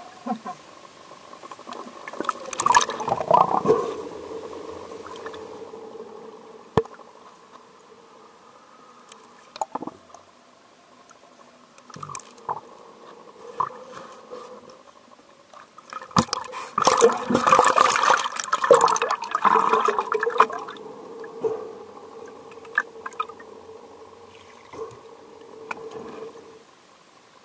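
Water splashing, sloshing and gurgling right at a camera held at the surface, with two long loud churning stretches about three seconds in and again a little past the middle, and short splashes in between. A faint steady hum runs underneath.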